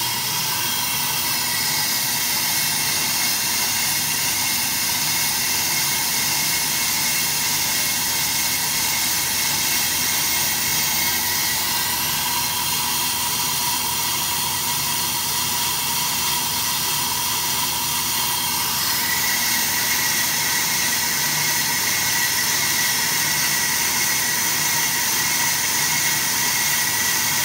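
AMMCO brake lathe taking a rough cut on a large cast-iron brake rotor: a steady hiss of the bits cutting over the hum of the lathe, with a high ring that grows louder about two-thirds of the way through. The ring is typical of this tough rotor wanting to start chattering, held back by the stable damping tooling.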